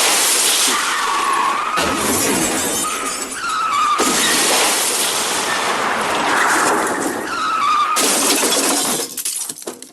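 The MGM cartoon 'elephant smash' crash sound effect, played several times back to back: loud crashing and shattering with a wavering squeal through it. Near the end it breaks up into a few scattered clatters and stops.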